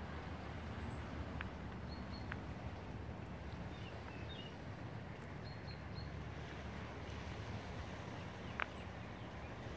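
Quiet outdoor ambience: a steady low rumble with faint, high bird chirps now and then, and a few soft clicks, the clearest one near the end.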